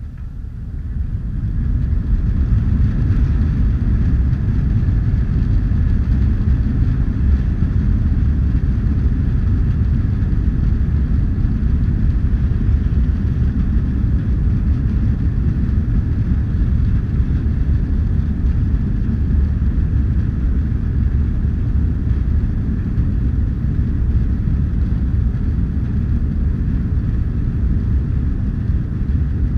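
Airliner's jet engines spooling up to take-off thrust over the first couple of seconds, then a steady loud rumble through the take-off run, with a faint steady whine above it.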